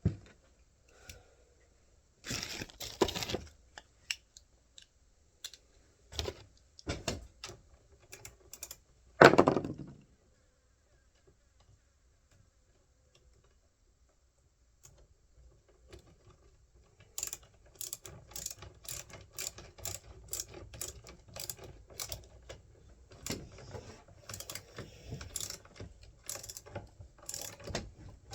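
Hand work on a chainsaw's bar and cover: a few knocks and clatters of metal parts and tools, then, from about halfway in, a long run of quick irregular clicking as the side-cover nut is fitted and tightened.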